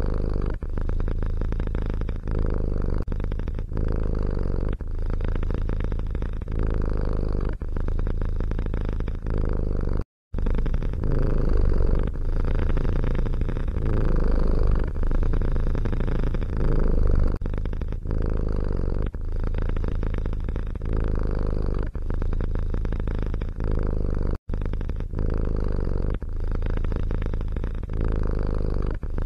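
A cat purring loudly and close up, the purr swelling and dipping a little more than once a second. It cuts out to silence twice for a split second.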